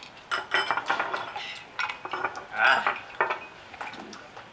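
Glasses and tableware clinking on a table: a string of short, sharp clinks with brief ringing, irregularly spaced, loudest a little past halfway.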